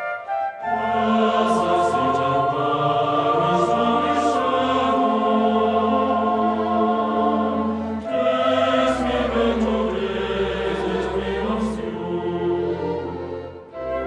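Slow background music with held, choir-like voices in sustained chords. It swells in just after the start, moves to a new phrase about eight seconds in, and fades briefly near the end.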